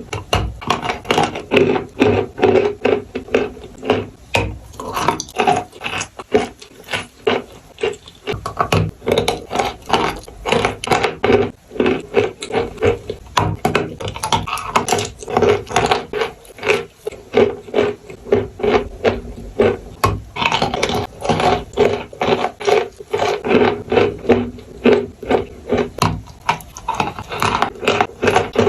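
Close-up crunching and chewing of chalk, the dry and wet 'marshmallow' kind: a dense, loud run of crisp crunches several times a second over a gritty rasp.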